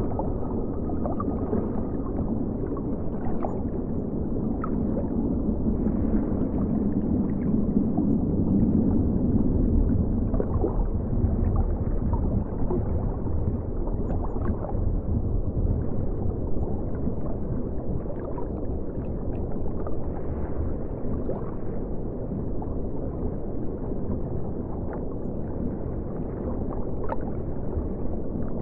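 River water flowing, heard muffled from under the surface: a steady low rumble and gurgle with scattered faint ticks and clicks.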